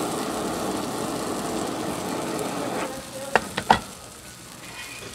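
Handheld butane blowtorch flame running steadily over abalone and turban-shell slices on a flat griddle, cutting off about three seconds in. Three sharp clicks follow, over a low sizzle from the griddle.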